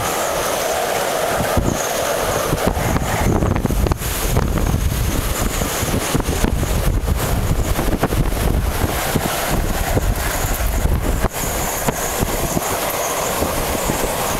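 Typhoon-force wind buffeting the microphone: a loud, continuous rumbling rush with constant crackle and gusty flutter.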